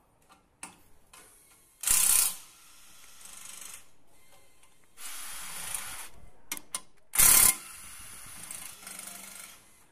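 Cordless power driver running bolts down into the main bearing caps of an AMG engine block, in short runs. There are two loud bursts, about two seconds in and again a little after seven seconds, with quieter tool noise and a few sharp clicks between them.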